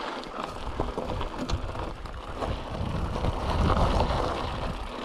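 Cube Reaction GTC Pro hardtail mountain bike riding down a rocky dirt trail with its suspension fork locked out: tyres crunching over gravel and stones, with scattered knocks and rattles from the bike over the bumps. It is loudest a little before four seconds in.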